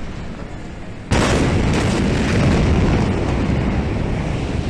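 Blast of the Beirut port ammonium nitrate explosion reaching a phone's microphone: a sudden loud boom about a second in, followed by sustained deep noise as the shock wave hits.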